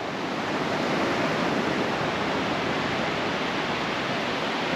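Ocean surf breaking along a sandy beach: a steady wash of waves with no separate crashes.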